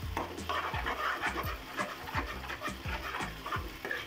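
A spatula stirring and scraping mashed aubergine around a metal kadhai, about two or three strokes a second, with the oil sizzling underneath as the bharta is fried.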